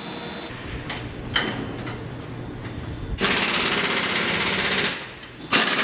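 Impact wrench hammering in two rapid rattling bursts, one about three seconds in lasting under two seconds and another starting just before the end, over a low steady hum, as bolts are run in to fasten the mirror cell to its transport fixture.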